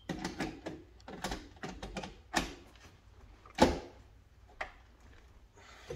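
Irregular clicks, taps and clanks of hands working on an electrical breaker panel while a breaker is fitted, with one louder knock about three and a half seconds in.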